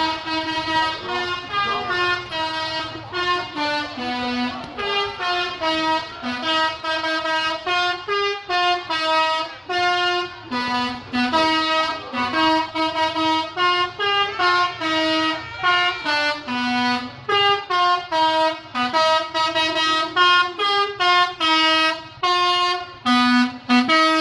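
Bus telolet horn, a set of multi-tone air horns, playing a quick tune of short stepped notes, several a second, with hardly a break.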